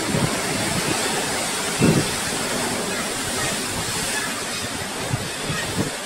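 Steady rushing of moving water, with wind buffeting the microphone in low thumps, the strongest about two seconds in.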